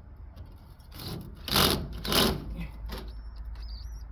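Metal scraping and rasping in four rough strokes as parts of a central air conditioner are pried and pulled apart, with a thin high squeal near the end.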